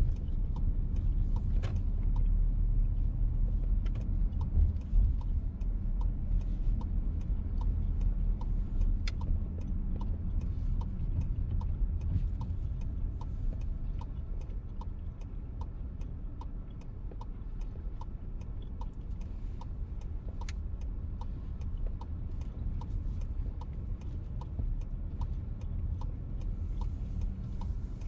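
Turn signal of a VW T-Roc ticking at an even pace, about one tick every 0.7 s, over the steady low rumble of the car heard from inside the cabin.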